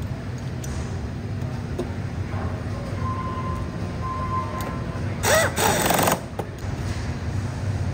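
Steady low hum of an assembly floor. About five seconds in, a bench-mounted pneumatic tool runs for about a second, a hissing whir with a bending whine, during assembly of a rifle bolt subassembly.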